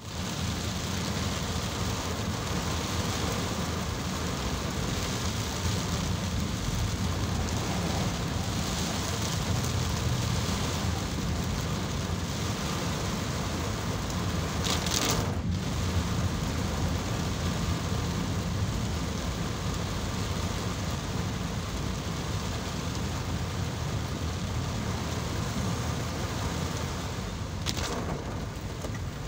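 Heavy tropical rain pelting a car's roof and windshield, heard from inside the cabin as a steady, dense rush. A short swish cuts through it about halfway through and again near the end.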